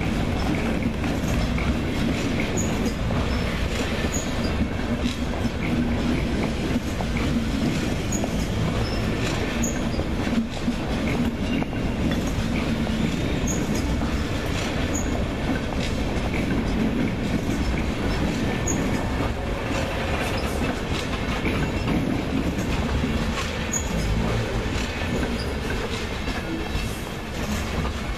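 Deutsche Bahn Intercity passenger coaches rolling past, the wheels clattering over the rail joints with a steady low rumble, with short high squeals from the wheels scattered throughout. The sound eases a little near the end as the last coaches go by.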